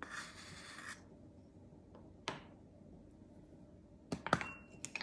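A wooden measuring spoon scraping through baking powder in its can for about a second, leveling the scoop. Then a single tap about two seconds in, and a few quick taps against a glass measuring cup near the end, one giving a short ring.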